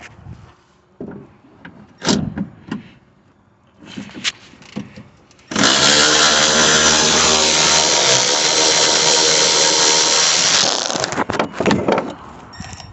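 A handheld power tool motor runs steadily for about five seconds with a whine, starting about five and a half seconds in. Before and after it come scattered clicks and knocks of metal parts being handled.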